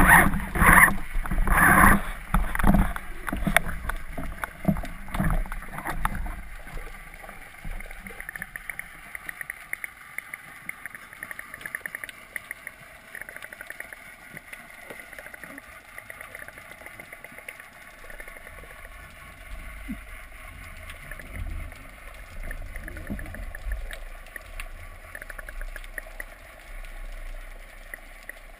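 Underwater sound heard through a camera housing: a series of strong, irregular whooshing pulses of water about once a second for the first six seconds, then a faint steady watery hiss with small clicks.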